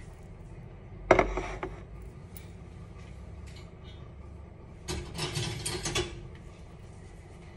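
A ceramic plate set down with a sharp clatter on a stone countertop about a second in, ringing briefly. Around five seconds in comes about a second of rattling and clinking.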